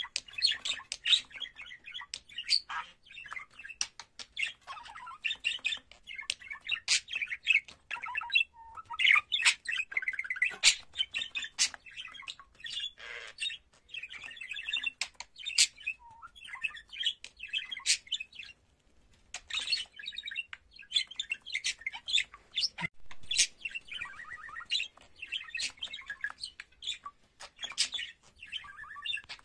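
Budgerigar warbling: a long run of rapid chattering chirps, squeaks and clicks, broken by a few brief pauses.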